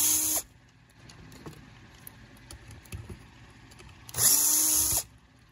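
Cordless drill/driver backing out screws. One run of its motor cuts off about half a second in, and a second run of just under a second comes about four seconds in, with faint handling clicks between.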